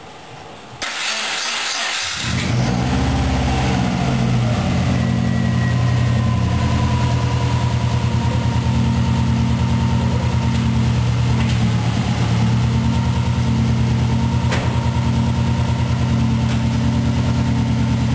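Just-reassembled Subaru EJ205 flat-four engine cranking on the starter for about a second, catching about two seconds in with a brief flare, then settling into a steady idle.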